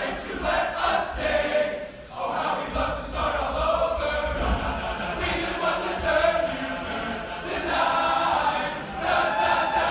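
Many male voices singing together in chorus, with low thuds underneath.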